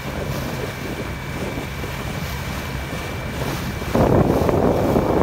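Wind buffeting the microphone over choppy open water, with waves lapping. The rush turns suddenly louder and rougher about four seconds in.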